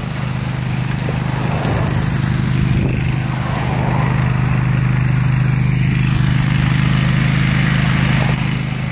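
Spider remote-controlled slope mower's engine running steadily as the mower cuts brush, a constant even drone.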